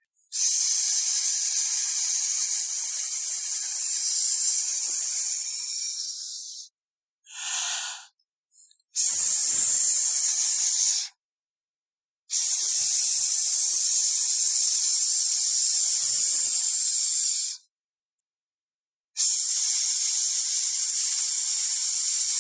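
Snake hiss imitations made by a person: four long, loud hisses with clean silent gaps between them, the second only about two seconds long, and a short separate sound about seven seconds in.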